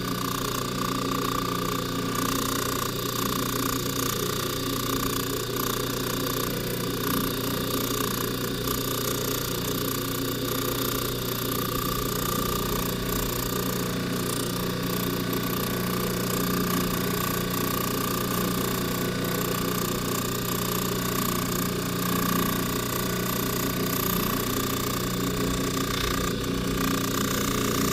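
Jeweler's polishing buffer motor running steadily while a silver box chain is buffed against the rouge-loaded wheel, a constant hum with a high whine above it.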